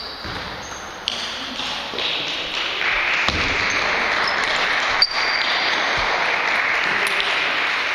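Celluloid-type table tennis ball struck by bats and bouncing on the table during a point, a few sharp ticks with the clearest about five seconds in, over a steady hall noise.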